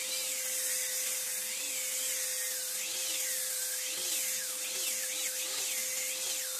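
Electric angle grinder fitted with a sanding disc running steadily as it sands a teak plank: an even motor whine over a dense hiss of abrasive on wood.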